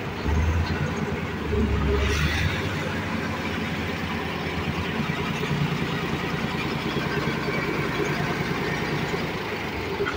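Forklift engine running steadily, swelling louder twice in the first two seconds or so.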